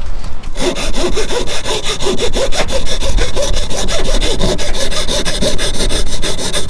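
Hand file rasping rapidly back and forth to shave down the edge of a carbon fiber side marker, trimming it so it sits flush against the fender liner. Fast, even strokes begin about half a second in.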